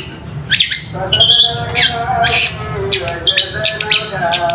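Long-tailed shrike (cendet) singing a rapid, harsh chattering song of sharp notes that sweep downward, with lower warbled notes beneath.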